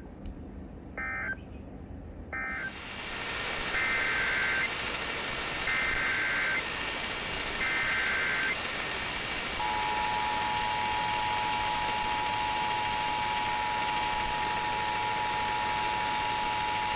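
Emergency Alert System signalling. Three short SAME data bursts end one alert as its end-of-message code, then three longer SAME header bursts open the next alert. About ten seconds in, the steady two-tone EAS attention signal begins.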